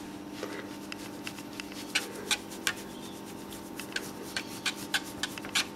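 A hand rubbing and patting a Jack Russell terrier's short fur, making irregular scratchy strokes a few times a second over a faint steady hum.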